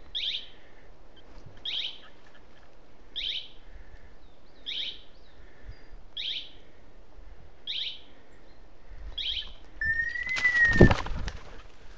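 A hunting dog's beeper collar in point mode, sounding the same short descending screech about every one and a half seconds. About ten seconds in, a short whistle is followed by a loud burst of wing flapping as a game bird flushes.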